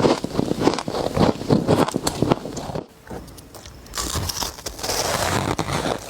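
Powdery chunks of ice being bitten and crunched close to the microphone: rapid crackling crunches, a short quieter lull a little before the middle, then steady crunching again.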